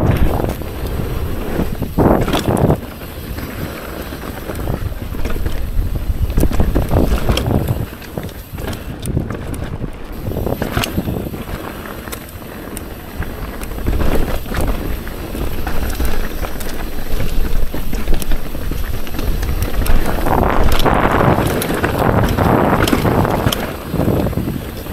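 Mountain bike rolling fast down a dirt singletrack: tyre noise over the dirt with frequent knocks and rattles from the bike over bumps, and wind rushing over the microphone.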